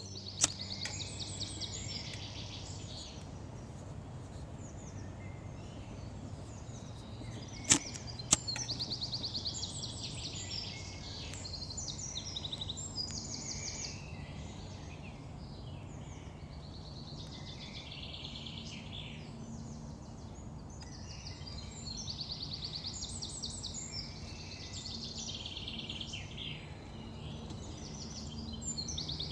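Woodland songbirds singing repeated rapid trilling phrases over a low steady background hum, with a few sharp clicks: one about half a second in and two close together about eight seconds in.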